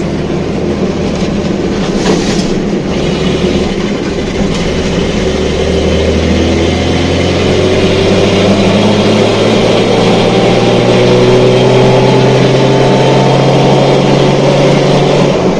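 Datsun 240Z's straight-six engine heard from inside the cabin with no sound deadening, the car under way. The engine note climbs steadily in pitch and loudness as it accelerates, then holds at a steady speed.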